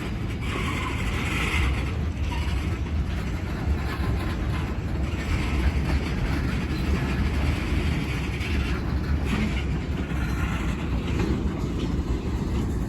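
Freight train cars rolling past on the rails: a steady low rumble with wheel-on-rail noise.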